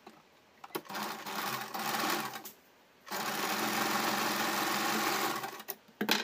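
Compact electric sewing machine stitching in two short runs, the first about a second and a half and the second about two and a half seconds, with a brief pause between. A few sharp clicks come near the end as the work is pulled out from under the needle.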